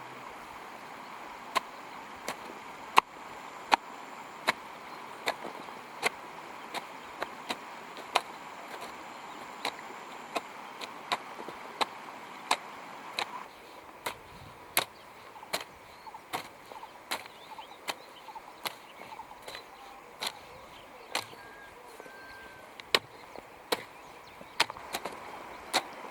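A hand hoe striking into soil again and again while furrows are dug for planting ginger: sharp strikes, irregular, one or two a second.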